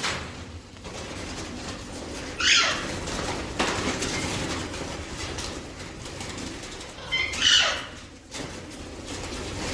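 Pet parrots calling: two loud calls, each under a second, about two and a half seconds in and again about seven and a half seconds in, over a steady background hiss.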